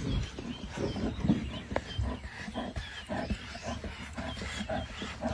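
Lion making a rapid run of short, low sounds, about three a second, over a low rumble.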